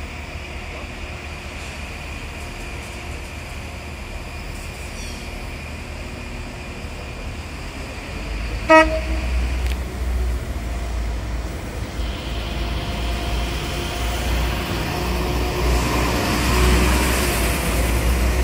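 A train's horn gives one short toot about halfway through, over the low rumble of a train that grows steadily louder toward the end.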